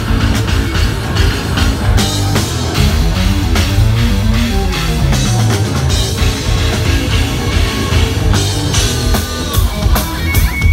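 Live progressive metal band playing an instrumental passage: fast runs of low notes on double-neck electric guitar and double-neck bass over a full drum kit, with evenly spaced drum hits near the end.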